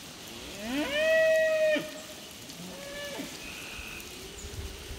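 A cow mooing twice: one long, loud moo that rises and then holds its pitch about a second in, then a shorter, quieter moo.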